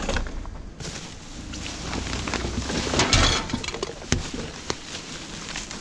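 Discarded household items being handled and moved about in a pile of rubbish: scattered clicks and knocks, with a louder rustling clatter about three seconds in.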